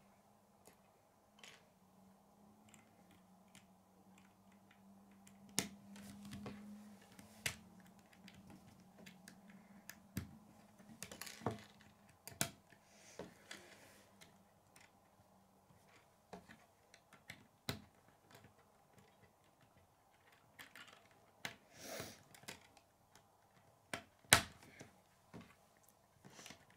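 Plastic K'nex rods and connectors clicking as they are snapped together and set down on a wooden table, in scattered, irregular clicks and taps.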